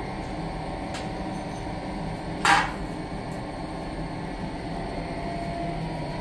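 A wire grill basket clatters shut once, briefly, about two and a half seconds in, over a steady low hum. A lighter metal click comes about a second in.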